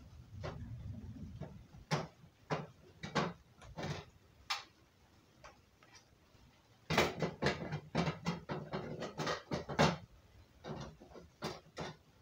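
Hard plastic hot tub filter parts knocking and clicking as they are lifted out of the filter housing and fitted back in, with a quick run of clicks in the second half as the part is seated.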